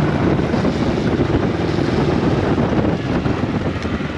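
Honda CRF50F's small air-cooled four-stroke single-cylinder engine running steadily, running well again on a new fuel petcock, with wind on the microphone.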